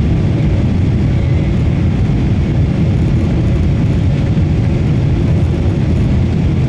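Steady low rumble of cabin noise inside a Boeing 777-300ER taxiing after landing, from its GE90-115B engines and the airframe rolling on the ground.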